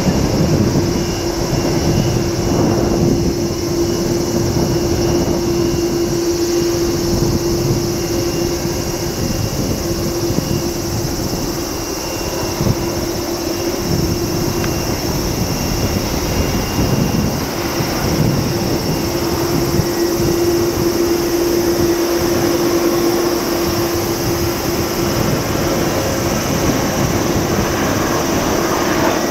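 Boeing 787-9 airliner on final approach with its landing gear down, its jet engines making a steady drone with a constant humming tone.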